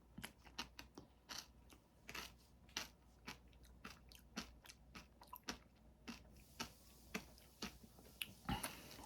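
Close-up chewing of granadilla pulp and its crunchy seeds: a string of small, irregular crunches and mouth clicks, the loudest near the end.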